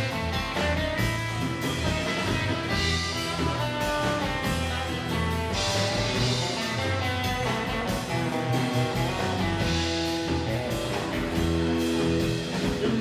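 A live rockabilly band playing an instrumental passage with no singing: strummed acoustic guitar over drums and a steady low bass line, with cymbal crashes every few seconds.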